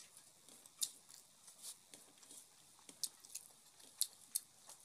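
Close-up eating sounds: scattered short, sharp wet clicks and smacks, about eight in five seconds, as rice and curry are mixed by hand on a steel plate and chewed.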